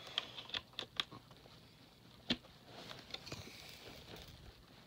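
Light clicks and taps from hands handling a plastic weather radio: about five in the first second and a sharper one a little after two seconds, followed by a soft rustle.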